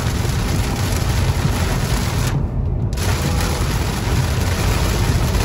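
Heavy rain beating on a moving car, heard inside the cabin over a steady low rumble of road and wind noise. The rain hiss drops away briefly about two and a half seconds in.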